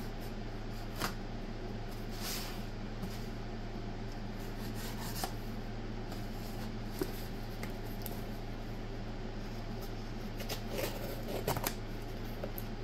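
Cardboard shipping box being handled at a desk: scattered rustles, scrapes and light clicks, busiest near the end, over a steady low hum.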